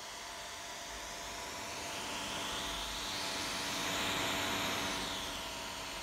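MSI GS65 laptop's cooling fans running, a steady rush of air with a faint, even whine under it. The rush grows louder about three to four seconds in, then eases.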